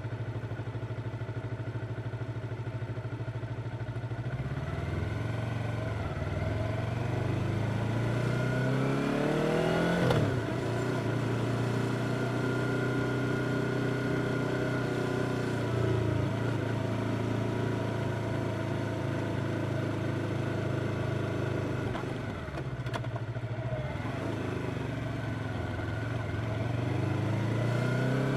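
Yamaha R25's parallel-twin engine under way: steady low revs at first, then revs climbing in several steps through gear changes, a spell of steady cruising, a brief dip and pick-up in revs about two thirds in, and revs rising again near the end.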